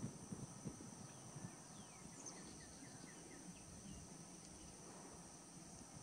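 Faint outdoor ambience: a steady high insect whine and a low rumble, with a quick series of about six short chirps about two seconds in.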